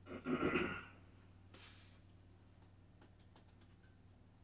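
A man's short, breathy exhale near the start and a fainter breath about a second and a half in, then a few light clicks of handling, over the low steady hum of a washer and dryer running.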